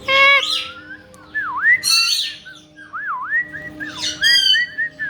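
Caique parrots calling: loud, shrill squawks at the start, about two seconds in and about four seconds in, with dipping whistles between them.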